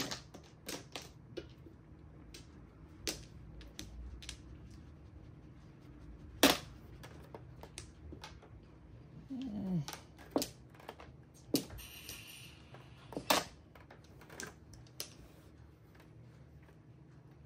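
Mahjong tiles clacking as they are set down and discarded on the table: sharp single clicks at irregular intervals of a second or two, the loudest about six and a half seconds in.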